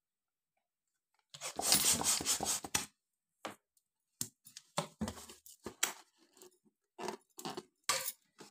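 Plastic hand pump forcing air into a small latex balloon, a hiss of about a second and a half starting a little over a second in. After it comes a string of short rubbery squeaks and rubs as the inflated balloon's neck is stretched and tied in a knot.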